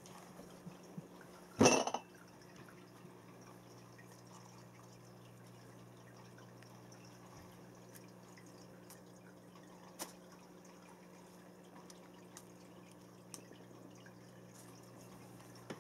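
Faint steady hum of a pet drinking fountain with soft dripping ticks now and then. A short loud noise about two seconds in.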